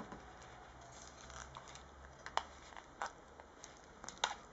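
Faint handling noise of bare tablet parts, the LCD panel and circuit board, being picked up and moved on a table: light rustling and a handful of sharp little clicks, the loudest about two and a half seconds in.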